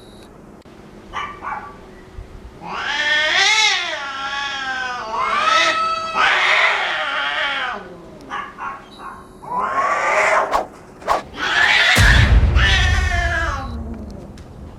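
Cats caterwauling: long yowls that waver up and down in pitch, the threat calls of a cat fight. A sudden low rumble comes in about twelve seconds in.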